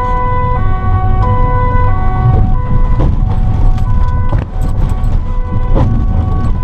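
Two-tone police siren sounding hi-lo, switching pitch about every two-thirds of a second, heard from inside a police car over the engine and road rumble, with a few short knocks.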